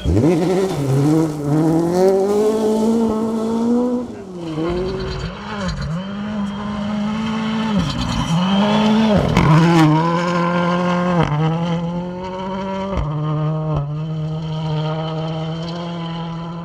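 Rally car engine under hard driving. The revs climb and then drop sharply several times in the first half, as on gear changes or lifting off. From about eleven seconds in it holds a steady pitch and slowly grows quieter.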